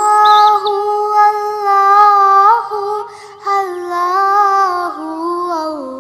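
Background song: a high voice singing long held notes that slide gently between pitches, with a short break about three seconds in. Brief chirping sweeps sound just after the start.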